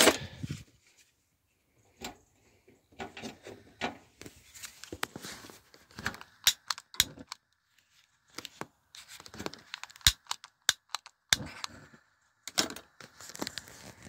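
Irregular sharp clicks and rustling handling noise while a burner on a three-burner gas hob is being lit.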